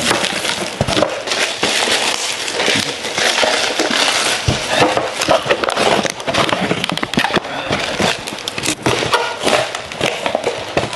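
Plastic packaging crinkling and crackling in the hands as instant noodle cups are unwrapped and opened, with quick irregular crackles and clicks.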